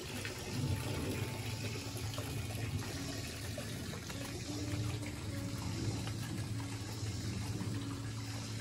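Spring water running steadily from the spring's outlet, a continuous rush of flowing water.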